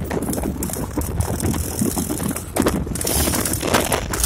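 Road rumble with rapid rattling and clatter from moving vehicles and a horse trotting alongside, drawing a two-wheeled racing sulky.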